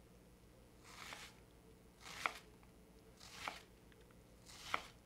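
Chef's knife dicing an onion on a cutting board: four slow, evenly spaced cuts a little over a second apart, each a short crunch through the onion ending in a sharp click of the blade on the board. Faint.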